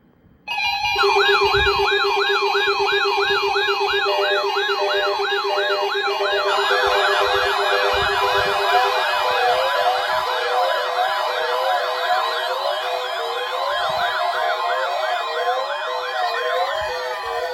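Several electronic sirens sounding together, cutting in suddenly after half a second of silence: a fast yelp rising and falling about three times a second over a steady low buzzing tone, with more siren sweeps layering in about six and nine seconds in.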